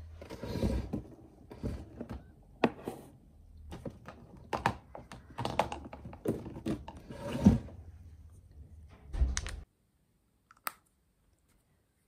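Close handling noises at a tabletop: irregular sharp knocks and clicks as things are picked up and set down, with rustling and rubbing between them. They cut off suddenly about three-quarters of the way through, leaving only a single faint click.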